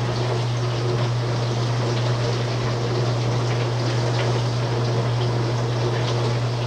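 A steady low hum with a constant hiss over it, and a few faint clinks of a spoon against a bowl.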